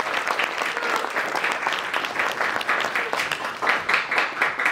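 Audience applauding: many people clapping at once, steadily.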